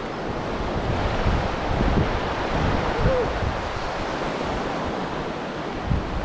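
Surf washing onto a beach, with wind buffeting the microphone in irregular gusts.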